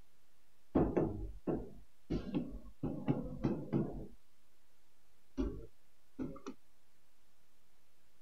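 Writing on a board: a series of short knocks and taps of the pen against the surface, in quick clusters for about four seconds, then two more brief taps a little later.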